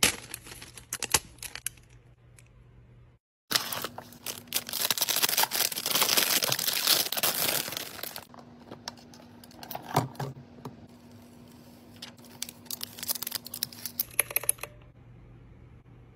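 Plastic packaging being crinkled and torn open, loudest for about four seconds starting a few seconds in, with scattered clicks and taps from handling.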